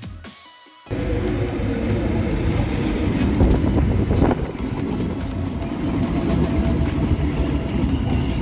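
Tyne and Wear Metro train alongside the platform, a steady loud rumble of the train starting just under a second in, with a brief higher-pitched sound about four seconds in.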